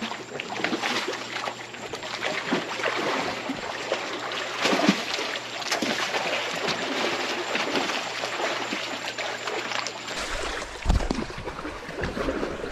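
A roughly 10 ft American crocodile thrashing in a swimming pool: continuous splashing and slapping of water. After about ten seconds, low wind and handling rumble on the microphone joins in.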